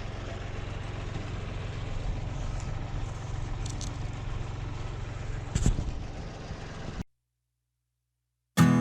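An engine idling steadily, with a few faint clicks and one knock about five and a half seconds in. It cuts off abruptly at about seven seconds, and acoustic guitar strumming starts near the end.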